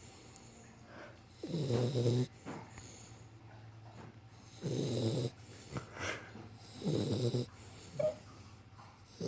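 Pit bull puppy snoring in her sleep: three snores about two to three seconds apart, each about half a second long.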